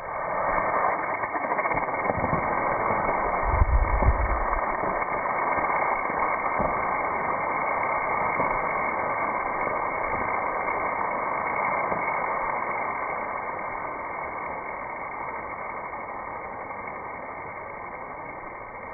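Slowed-down hiss of an 8 mm black-powder rocket motor driving a small helicopter: a deep, steady rushing noise that sets in at ignition and slowly fades in the last third. A few dull thumps come about two and four seconds in.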